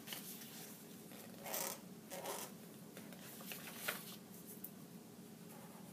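Pen drawing on paper: a few short scratchy strokes, the longest about one and a half seconds in, then some light ticks of the pen tip on the page.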